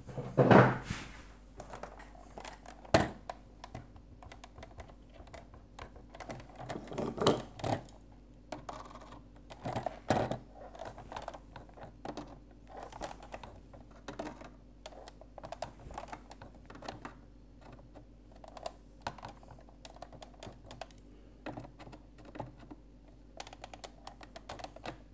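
A screw being turned by hand into a plastic toy hull, heard as many small, irregular clicks and scrapes. A few louder knocks of the plastic shell being handled come in the first half. The screw is biting into a plastic post that has just had its dust blown out, and it is going in a bit more easily.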